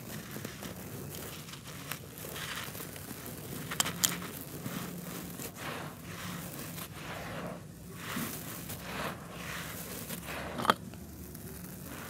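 Dry, crumbly red dirt being crushed and crumbled between bare hands, a continuous grainy crunching with loose dirt trickling. A few sharp cracks stand out: two close together about four seconds in and one loud one near the end.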